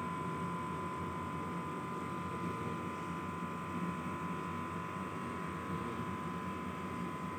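Steady background noise: a constant high-pitched whine over a low hum, unchanging throughout.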